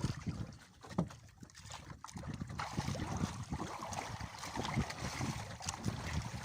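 Water sloshing and splashing around a small fishing boat, with wind rumbling on the microphone and a few knocks; the splashing grows louder about two and a half seconds in.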